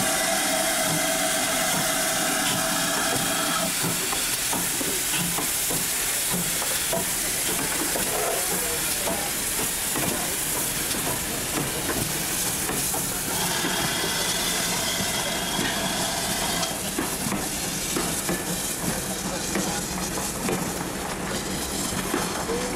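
Steam locomotive, a GWR 4200 class 2-8-0 tank engine, giving off a steady hiss of steam as it works its train. A long held tone sounds at the start, and another, higher one about halfway through.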